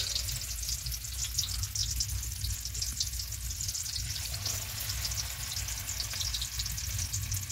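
Battered chicken pakoras frying in hot oil in an aluminium kadai: a steady sizzle with dense crackling, over a low rumble.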